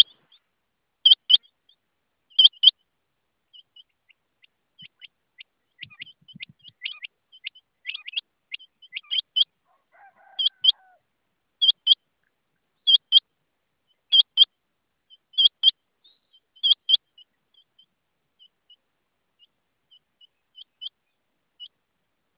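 Rain quail calling: a loud, high double note, repeated about every second and a quarter. There is a pause of several seconds filled with softer scattered notes, then a second run of calls and a few faint notes near the end.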